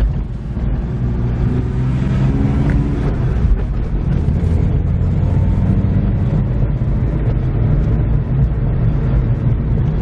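BMW E36 driving, heard from inside the cabin: a steady low engine and road rumble over a rough road surface, with the engine note rising briefly about two seconds in.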